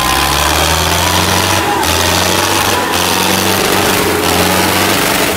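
Sonalika tractor's diesel engine running loudly at steady high revs.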